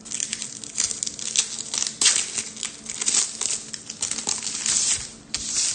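Foil wrapper of a trading-card pack crinkling and tearing as it is opened by hand, with the cards rustling, in a dense irregular run of crackles.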